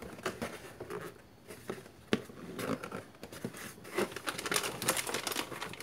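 Hands handling a cardboard box and its plastic packaging while unboxing: scattered rustles and light knocks. There is a sharp tap about two seconds in and denser crinkling from about four seconds in.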